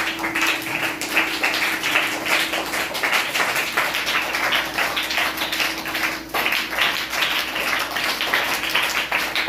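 A group of children clapping their hands in applause, a dense irregular patter that keeps going, over a steady low hum.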